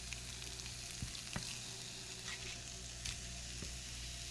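Sheepshead fillets sizzling steadily in olive oil in a cast iron skillet, with a few light clicks and scrapes of a spatula turning them.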